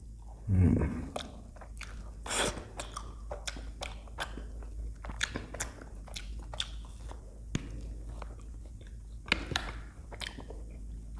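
Close-up biting and chewing of a frozen ice cream bar on a stick, with many short wet mouth clicks and a few louder crunching bites. A brief low hum comes about half a second in.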